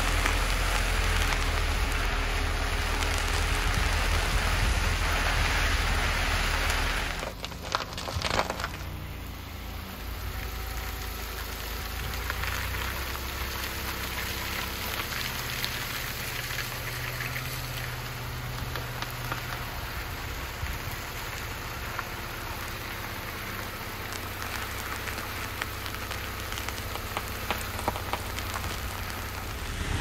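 Car tyres rolling over a gravel and dirt road: a steady crunching of loose stones under the tyres, with a low engine rumble. About seven seconds in it drops to a quieter, slow roll, with a faint low engine hum and scattered crackles of gravel.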